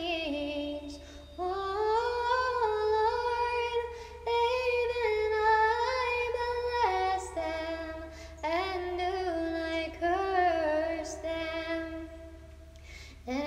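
A woman's voice singing unaccompanied in a slow, chant-like melody, the sung refrain of a prayer, with short pauses between phrases. A faint low hum runs underneath.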